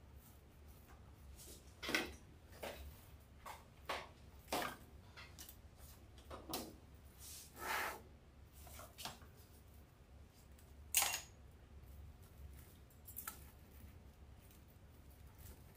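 Irregular clicks and a few brief rustles from hands working deco mesh and craft supplies on the worktable, over a low steady hum.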